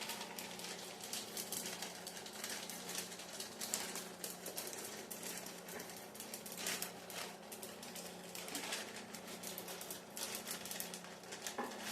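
Semi-sweet chocolate chips being sprinkled over cake batter in a baking dish, making light, irregular little ticks and clicks.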